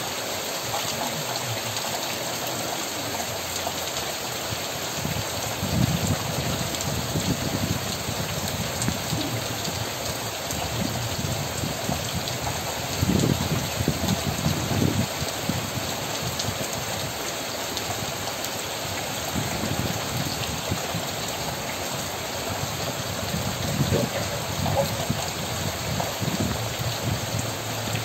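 Steady rain falling in a dense, even hiss. A few brief louder, deeper swells come about 6 seconds in, around 13 to 15 seconds, and near 24 seconds.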